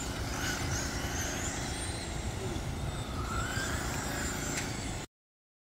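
Radio-controlled cars racing on a dirt oval track, their motors giving high-pitched whines that rise and fall as they pass, over a steady low rumble. The sound cuts off abruptly about five seconds in.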